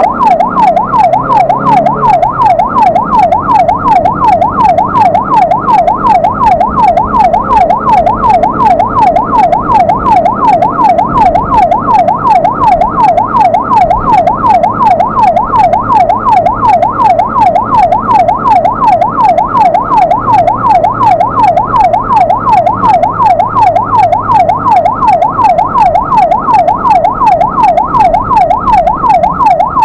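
Ambulance's electronic siren in fast yelp mode, a loud tone sweeping rapidly up and down several times a second without a break. It is heard from inside the ambulance's own cab, with a low engine hum faintly beneath it.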